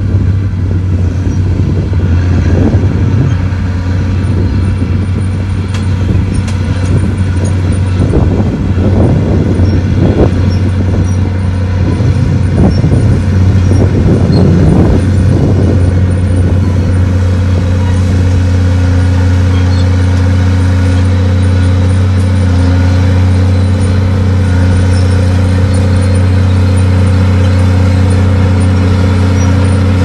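Diesel engine of heavy earthmoving machinery running steadily with a deep hum. Through the first half there is a spell of clanks and knocks, then the engine settles into a steady drone.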